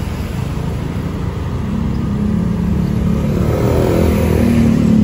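Motor scooter's engine pulling away, its pitch rising from about two seconds in, over a steady low wind rumble on the microphone.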